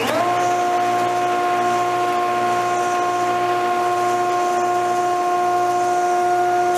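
Jointer motor switched on, its whine rising to speed in a fraction of a second and then running with a steady, even pitch, the cutterhead spinning freely with no wood being cut.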